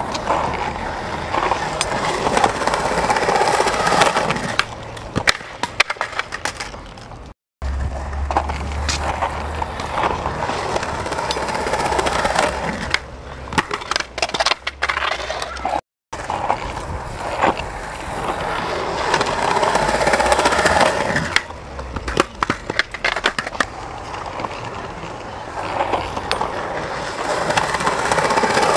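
Skateboard urethane wheels rolling over concrete, with sharp pops and clacks of the board's tail and wood hitting the ground during tricks. The sound cuts out abruptly twice, at about 7 and 16 seconds in, where the tape footage is cut.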